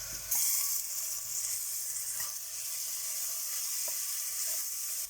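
Ginger-garlic paste and onions frying in groundnut oil in the base of a pressure cooker, a steady sizzle that jumps louder about a third of a second in. A few light clicks of a spoon stirring are heard against the pan.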